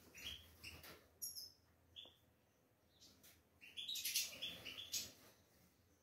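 Several small aviary finches chirping with short, high calls, with a busier run of overlapping chirps around four seconds in.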